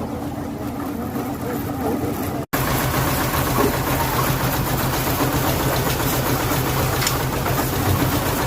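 An engine running steadily at a constant speed. There is an abrupt cut about two and a half seconds in, after which the engine sound is louder and holds a steady low hum.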